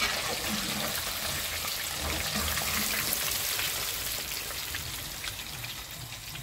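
Rohu fish pakoras deep-frying in a kadhai of hot oil: a steady sizzle with fine crackles, easing off a little near the end.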